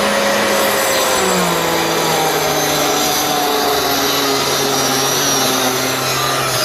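Bosch marble saw cutting garapa hardwood, its motor pitch sinking slowly and steadily as the blade loads up in the cut.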